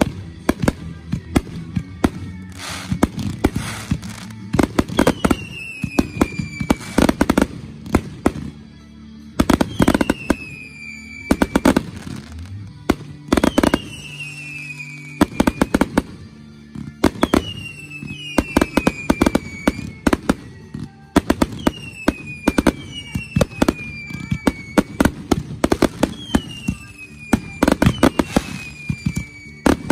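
Fireworks finale: rapid bangs and crackling from aerial shells and cakes going off in quick succession. A high whistle falling in pitch repeats about every four seconds.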